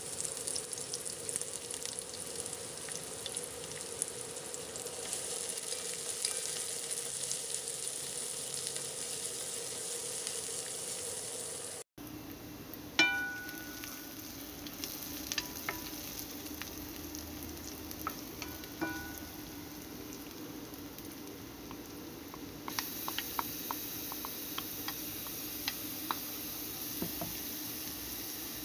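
Sliced red onions sizzling and crackling in hot oil in a pot, with a few ringing clinks, the loudest about 13 seconds in. The sizzle grows louder and brighter about two-thirds of the way through.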